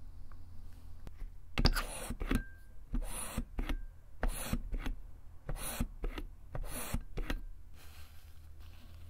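Hand-soap pump bottle pressed five times, about one press every second and a half, each stroke a short squirt.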